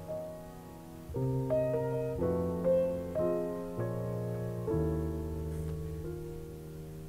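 Piano music: a slow piece with sustained chords, a new chord or bass note struck about once a second under a simple melody.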